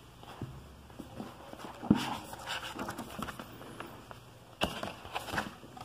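A large book being handled and leafed through: paper rustling as pages are turned, with a few light knocks, the sharpest about two seconds in and another near the end.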